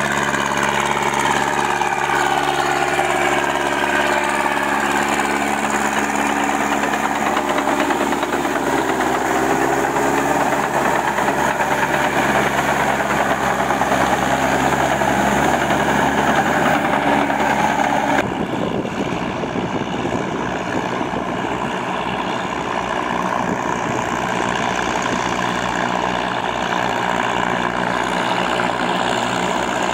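Massey Ferguson tractor's diesel engine running under load, its pitch wandering up and down. A little past halfway the sound cuts abruptly to a rougher, noisier engine running steadily.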